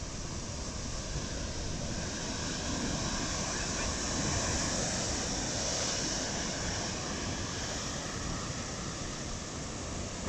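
Heavy sea surf surging into a rocky sea chasm and churning against the rocks, as a steady rush that swells louder around the middle and then eases.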